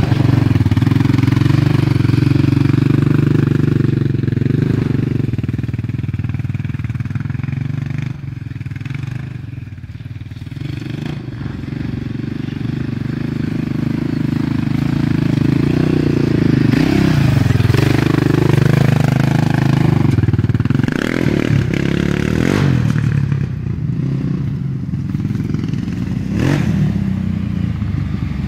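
Quad bike (ATV) engines running and revving as the quads ride over dirt. The engine sound falls away about a third of the way in as a quad rides off, builds again, and dips and rises in pitch past the middle.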